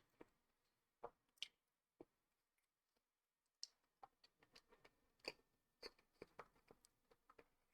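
Faint eating sounds: chewing and small clicks and crackles of food being handled. A few isolated clicks come in the first two seconds, then a denser run of them from about three and a half seconds in.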